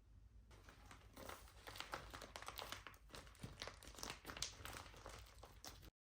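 Faint crinkling and rustling of something being handled, made of many small irregular clicks; it cuts off abruptly near the end.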